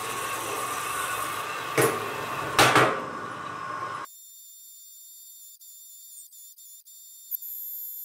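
Holzmann metal-cutting band saw running through a rusty steel round bar, with two loud clanks about two seconds in as the cut-off piece drops free. At about four seconds this gives way abruptly to a quieter steady high whine with a few clicks.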